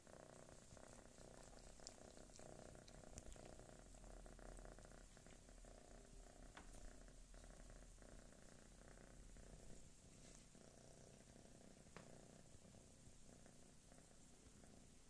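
Domestic tabby cat purring steadily and faintly, a low, tractor-like purr, with a couple of small clicks about seven and twelve seconds in.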